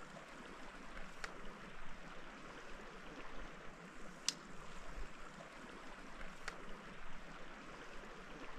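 Steady rush of running water, with three sharp clicks: about one, four and six and a half seconds in.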